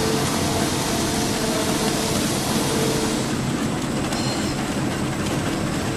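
Flexible drinking-straw making machine running at production speed: a steady, dense mechanical clatter. A faint steady tone in it stops about halfway through.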